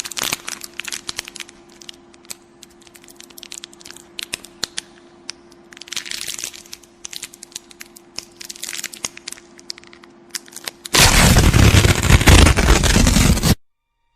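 Horror sound effect: scattered sharp crackling clicks over a faint steady hum, then a loud burst of harsh noise lasting about two and a half seconds that cuts off suddenly.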